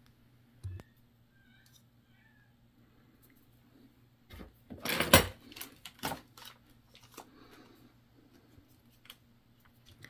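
Handling noise from a soldering station's front panel: a thump under a second in, then a loud cluster of knocks and clicks about five seconds in as the panel is moved and set down, followed by a few light clicks, over a faint low hum.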